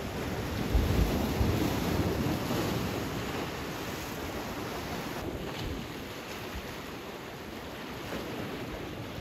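Sea waves washing ashore, with wind gusting on the microphone, the gusts strongest about a second in.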